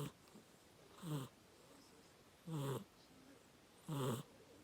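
Snoring at a steady breathing rhythm: a short pitched snore about every one and a half seconds, each falling slightly in pitch.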